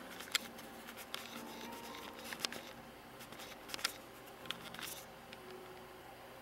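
Faint, scattered small clicks and light handling noises from a video camera being handled and zoomed in.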